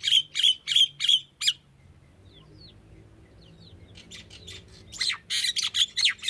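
Common myna calling: a run of harsh squawks, about three a second, then a pause with a few faint chirps, then dense squawking chatter from about four seconds in.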